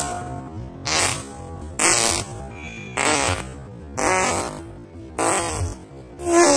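A run of short fart noises, about six, evenly spaced roughly one a second, each a brief buzzy sputter.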